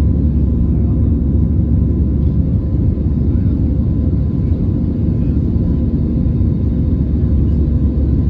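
Airbus A320 cabin noise heard from a window seat over the wing, shortly after takeoff: the steady deep rumble of the jet engines and rushing air, with a faint steady hum above it.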